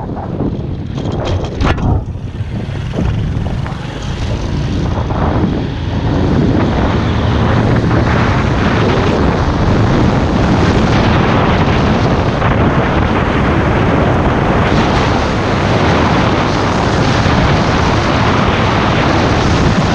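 Loud, steady wind noise buffeting the microphone of a motorcycle riding at speed, drowning out everything else. A few sharp knocks come about one to two seconds in, and after that the rush holds even.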